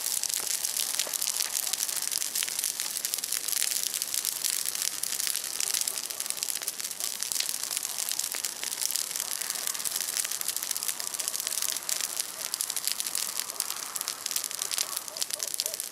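Large bonfire of broken tree branches burning: a steady hiss of flames packed with many small crackles and pops of burning wood.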